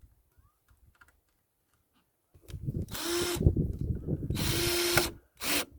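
Power tool running in repeated bursts with a steady hum, starting about two and a half seconds in, and a short final burst near the end.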